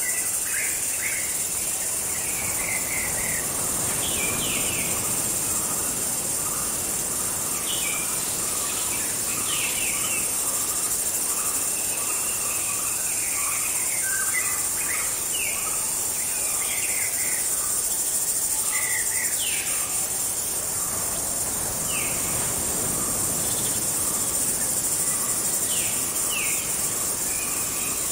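Tropical jungle ambience: a steady, high insect chorus, with short bird chirps and calls scattered every second or two and a softer, lower note repeated over and over.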